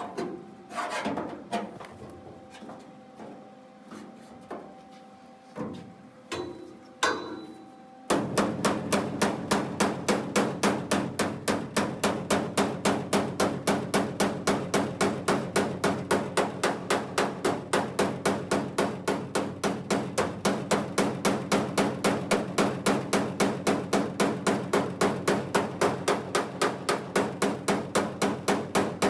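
Sheet steel being hammered: a few scattered knocks and clanks, then, about eight seconds in, a steady, even run of hammer blows at about three a second.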